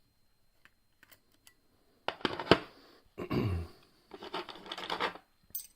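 Metal clicking and scraping as home-made lever-lock picking tools, a tension tool made from an old steel key and a pick wire, are worked out of the keyway of an ERA Big Six six-lever padlock. A few faint clicks come first, then a louder run of sharp clicks and scrapes from about two seconds in.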